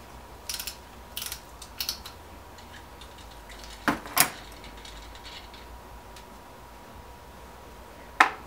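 Ratchet wrench with a 14mm socket clicking in three short spurts while loosening the pump's impeller nut, followed by two loud sharp knocks close together about four seconds in and another near the end.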